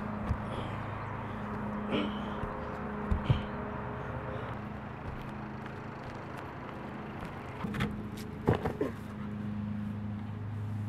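Steady low mechanical hum, like a nearby engine or motor running, with a few scattered knocks and thumps from someone moving across an asphalt-shingled roof and dropping down onto grass; a quick cluster of thumps comes about eight and a half seconds in.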